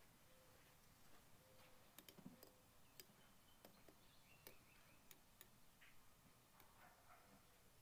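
Faint, scattered light clicks of a small metal pick tool touching the inside of an outboard lower unit's bearing carrier as an oil seal is worked into place.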